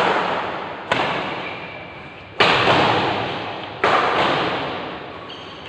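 Badminton rackets striking a shuttlecock four times in a rally, each sharp hit echoing and dying away in a large hall, the last two hardest.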